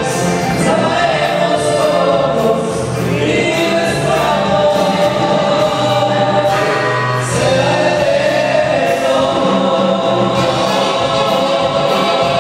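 A norteño band playing live: a held melody line over bass notes and a steady cymbal beat.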